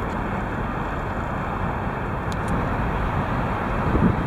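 Steady road and engine rumble of a moving car, heard from inside the cabin, with a brief bump near the end.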